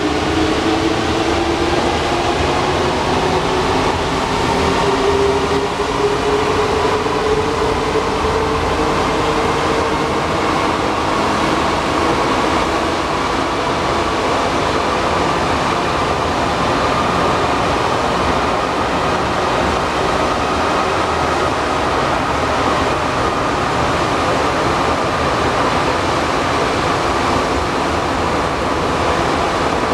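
Alstom NS-93 rubber-tyred metro train running, its traction motor whine rising in pitch over the first ten seconds or so as it accelerates, then settling into steady running noise.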